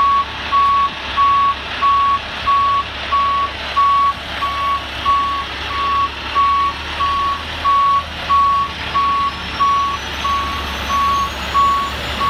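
Semi-truck's backup alarm beeping steadily, about one and a half beeps a second, over a low rumble, as the truck reverses to couple its fifth wheel under the trailer's kingpin.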